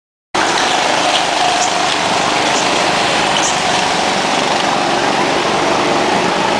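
Go-kart engines running steadily, cutting in suddenly after a moment of silence.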